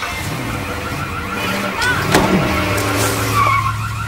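SUV engine revving and tyres skidding as it reverses at speed, loudest about two to three seconds in, with a repeating chirping tone over it.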